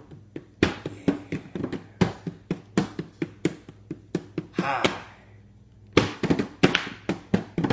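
Hand drumming on a clear plastic mint container played as bongos: a quick run of taps and thunks that stops for about a second around five seconds in, then starts again.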